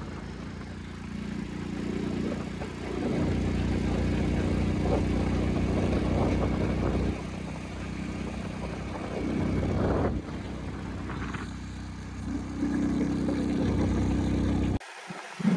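Motorcycle running at road speed with wind rushing over the microphone, a steady low rumble that swells and eases. The sound drops away suddenly near the end.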